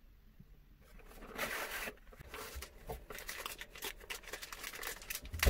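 A cardboard box being opened and a plastic bag handled, crinkling and rustling with many small clicks, starting about a second in after a near-quiet moment.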